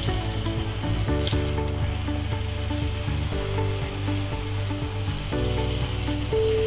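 Wheat-flour puris deep-frying in very hot oil in a kadai, the oil sizzling steadily. Soft background music with held notes plays underneath.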